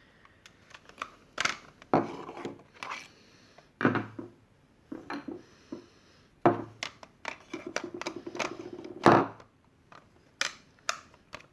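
Hard plastic clicks, knocks and scrapes, irregular: a 3D-printed custom blaster shell being handled and fitted.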